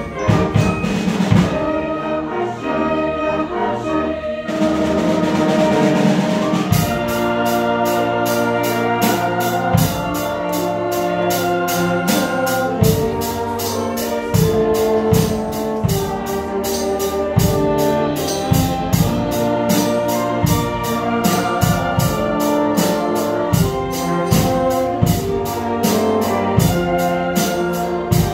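Live music from a concert band and choir: held chords, with a steady drum beat that comes in about six seconds in.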